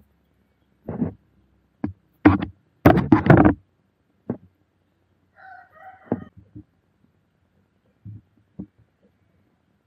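Hard plastic parts of a 3D-printed action figure clicking and knocking as they are handled and fitted together. The knocks come in a quick cluster in the first few seconds, then a few single clicks later.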